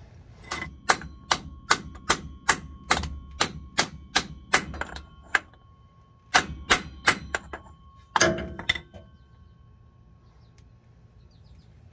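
Hammer blows on a homemade seal driver made from an old socket on an extension, tapping a new front output shaft seal into a 208 transfer case. There is a quick run of about fifteen strikes, a short pause, about five more, then one heavier blow, with the metal ringing faintly under the strikes.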